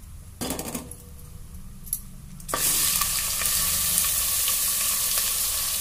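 Rice going into hot ghee in a metal pot. A short rustle as the first handful drops in about half a second in, then a steady loud sizzle from about two and a half seconds in as the bulk of the rice hits the fat.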